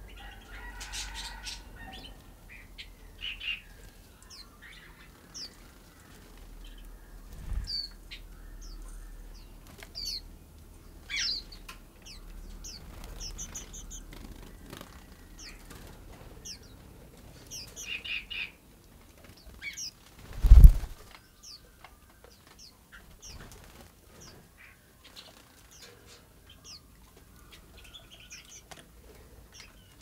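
Small white-eyes at a seed feeder giving short, high chirps scattered throughout. A loud low thump about two-thirds through, with a smaller one earlier, stands out above the chirps.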